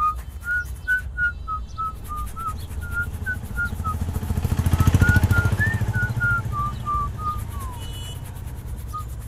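Someone whistling a tune in short, separate notes. A vehicle passes, swelling up and fading away around the middle.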